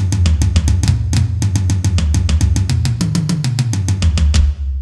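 Intro music: a fast, steady drum-kit beat of bass drum and snare over a low bass line, which steps in pitch about three seconds in. It cuts off shortly before the end.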